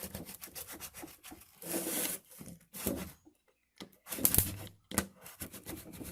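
Plastic-wheeled spline roller rolled along an aluminium-style window screen frame, pressing the spline and mesh into the groove: scraping rubs and small clicks, with two longer rolling strokes about two seconds and four seconds in and a short pause between them.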